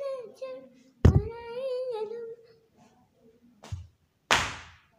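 A girl hums two long wordless notes in a small room. About a second in comes a sharp, loud knock. Near the end there is a short thump, then a loud rush of noise that fades quickly.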